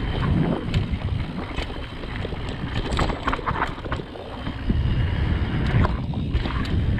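Riding wind buffeting a GoPro Hero 7 Black's microphone on a fast mountain bike descent, with scattered clicks and rattles from the bike on rough trail. The rush eases briefly about four seconds in, then picks up again.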